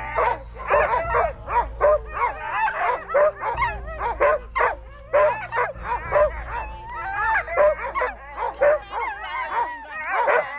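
A chorus of many harnessed sled dogs yipping, whining and howling, their wavering calls overlapping without a break: the eager din of a dog team hooked up and waiting to run.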